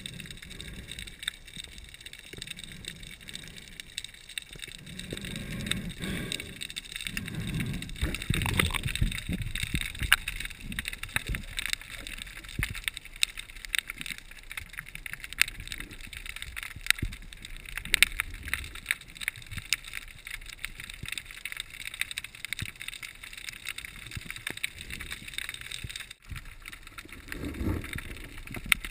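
Underwater sound picked up by a diving camera: a steady crackle of many small clicks, with low rushing water swells about five to nine seconds in and again near the end.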